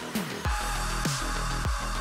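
Electronic background music with a heavy beat. Quick descending synth notes give way about half a second in to a deep sustained bass, with a kick drum roughly every 0.6 s.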